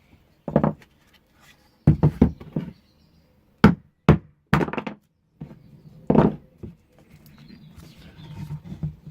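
Irregular hammer blows on the glued-in wooden parts of a resin-casting former, dull thunks knocking them loose, about eleven strikes including a quick run of four about two seconds in.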